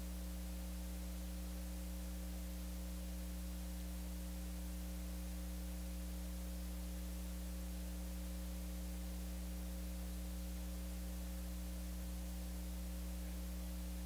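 Steady low electrical mains hum over a faint even hiss.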